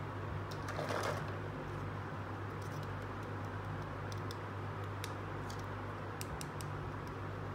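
Light plastic clicks and taps as a small plastic toy swing is picked up and handled, with a brief rustle about a second in, over a steady low hum.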